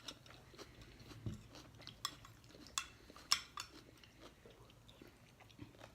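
Faint chewing and a few sharp clinks of cutlery against a plate, the loudest about three and a half seconds in.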